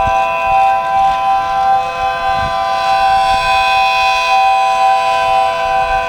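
3D-printed miniature ACA P10-style rotating tornado siren, with a 12/9-port chopper, sounding its steady alert chord at full speed. It swells a little as the rotator turns, and wind gusts buffet the microphone underneath.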